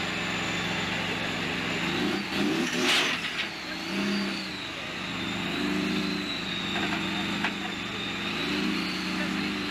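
Tracked armoured vehicle's engine running under load as it climbs a trailer ramp, swelling in pitch several times, with a loud burst about three seconds in. Voices are heard over it.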